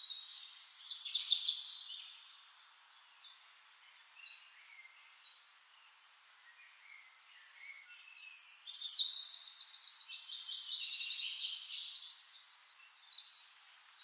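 Songbirds singing, with chirps, whistles and rapid trills. A burst of song comes about half a second in, then a quieter lull with faint distant calls, and from about eight seconds in a louder stretch of fast, repeated trills.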